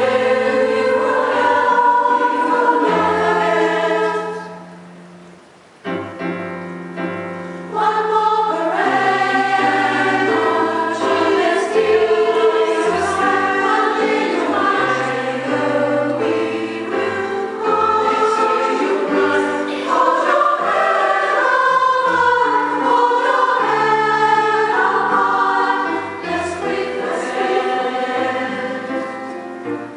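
Choir singing a slow piece in held notes across several voice parts. The singing fades to a short pause about five seconds in, then starts again.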